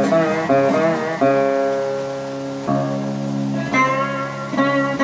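Amistar resonator guitar played solo: plucked notes ringing out with a metallic sustain, sliding and wavering in pitch in the first second, then new notes and chords struck about every second that ring on.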